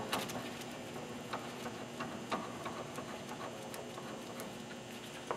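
A few light metallic clicks and taps of steel tool parts being handled, as a core retractor tool is worked off the top of a slickline JDC pulling tool. The clicks are sparser toward the end.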